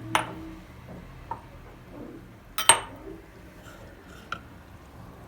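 Light clinks and knocks of dishes being handled: four short strikes, the loudest a double clink a little past halfway, some with a brief glassy ring.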